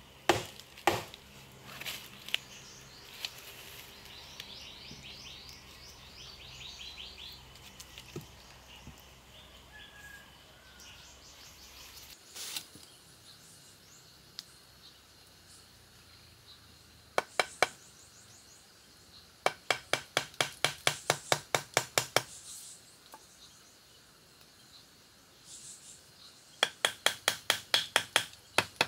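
Runs of quick, sharp, evenly spaced knocks or taps, about five a second, in three bursts in the second half, with a single louder crack in the middle. A bird trills a few seconds in.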